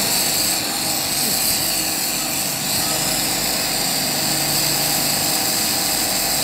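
Glassworker's gas torch burning steadily, a continuous rushing hiss with a faint hum beneath it, as clear glass rods are heated and bent in the flame.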